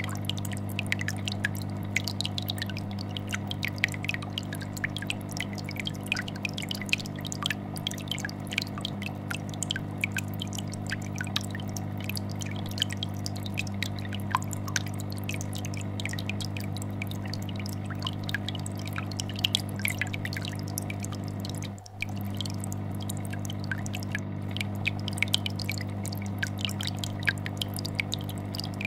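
Aquarium air bubbler and vibrating fish-tank filter: a steady low hum from the filter with a constant stream of small bubble pops and drips on top. The sound dips briefly once, about three quarters of the way through.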